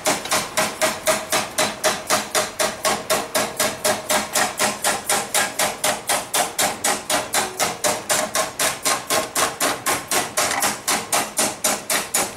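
Hand hammer striking the rim of a hot steel pan on a forging stake in a fast, even rhythm of about four or five blows a second, each a sharp metallic clang. The blows are upsetting and rolling the pan's rim.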